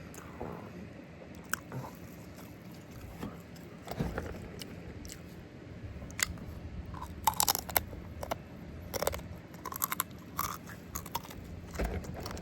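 Close-miked eating: irregular crunching, biting and chewing of food, with crackly clicks that come thicker in the second half.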